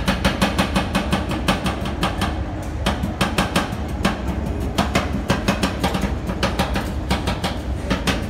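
Two metal spatulas chopping Oreo biscuits into the cream base on a steel rolled-ice-cream cold plate: a fast, even clatter of metal striking metal, about five or six strikes a second, over a steady low hum.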